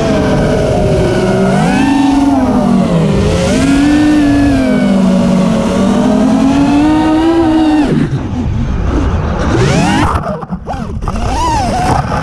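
FPV quadcopter's brushless motors whining, the pitch rising and falling as the throttle changes. About eight seconds in the steady whine breaks up into short, erratic glides with gaps.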